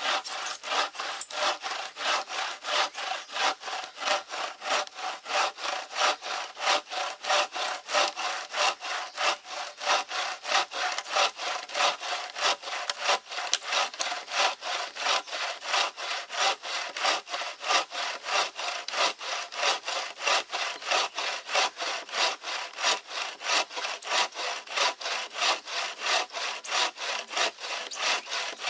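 Bow saw blade, strung on a green-wood bow, cutting through a sycamore log with steady, even back-and-forth strokes, about three a second.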